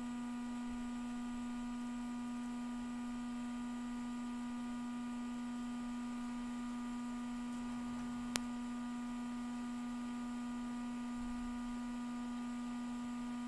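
Steady electrical mains hum from the bench equipment, one low tone with a ladder of even overtones, and a single sharp click about eight seconds in.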